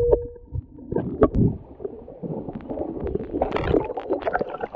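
Muffled underwater gurgling and rumble heard through a submerged camera, with a few sharp knocks about a second in. Near the end, crackling splashes as the camera and spearfisher break the surface of the creek.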